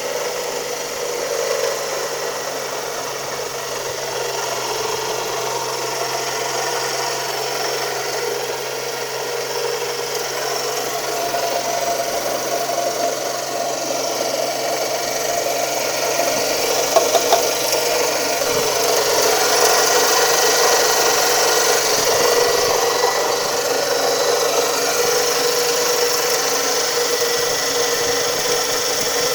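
Toyota 2AZ-FE 2.4-litre four-cylinder engine running with a steady grinding, ringing noise that the owner cannot explain. The noise grows a little louder about two-thirds of the way through.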